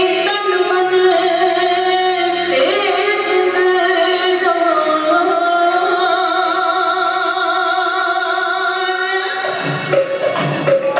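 A woman singing long, held notes with ornamental wavers into a microphone, over a sustained instrumental backing. About nine seconds in, the held note ends and percussion comes in with a run of drum strikes.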